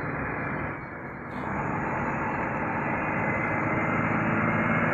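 Vehicle engine drone with a steady low hum, dipping briefly about a second in and then slowly growing louder.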